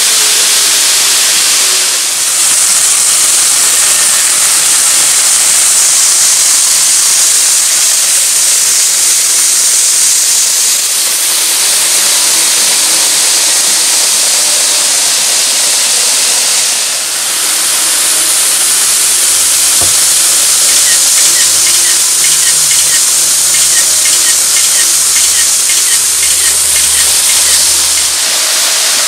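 N-gauge model Shinkansen train (KATO E4 series) running on the layout's track: a steady high hiss that dips briefly twice. Near the end comes a run of faint rapid clicking, like wheels passing over rail joints.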